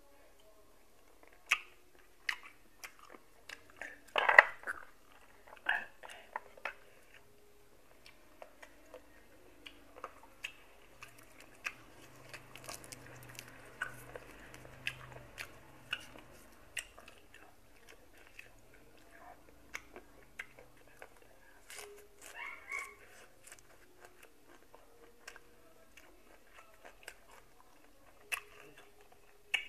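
Close chewing and biting of boiled golden apple snail meat, with scattered small clicks and mouth sounds and one sharper knock about four seconds in.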